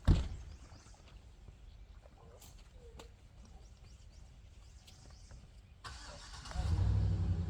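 A sharp thump, then about six and a half seconds in a motor starts and runs with a steady low hum.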